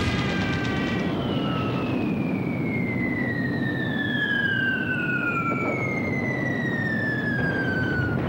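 Whistles of falling aerial bombs: two long descending whistles, the first starting about a second in and the second a few seconds later, each gliding down in pitch over several seconds above a steady low rumble. A steady tone from the moment before fades out about a second in.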